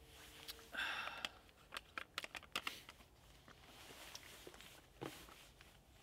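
Rustling and handling of gear: a short, louder rustle about a second in, then a quick run of sharp clicks and softer rustles as a drink bottle is put away and a roll-top backpack is opened, with one more knock near the end.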